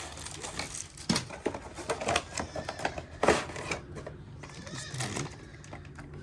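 Irregular clicks and rustles as gift items and their packaging are handled and unpacked.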